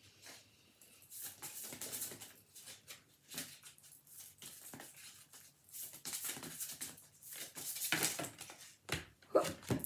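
A deck of oracle cards shuffled by hand: an irregular run of soft rustling, flicking strokes as the cards slide and slap together, with a brief louder noise near the end.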